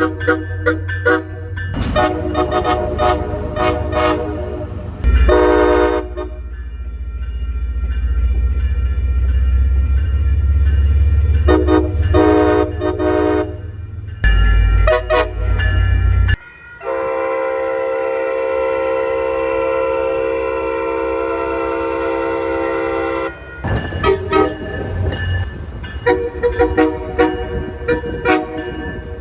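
Train air horns sounding a series of blasts: several short toots, then one long steady blast lasting about six seconds from just past the middle, then more short toots near the end, over the low rumble of the train.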